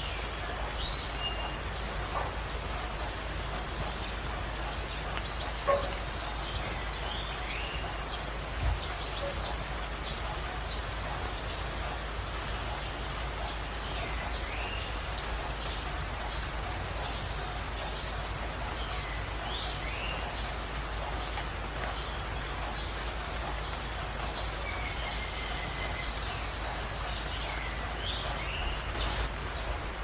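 Songbirds calling over a steady rush of running water: a short, high, rapid trill repeated every two to four seconds, with fainter lower whistles that slur downward in between.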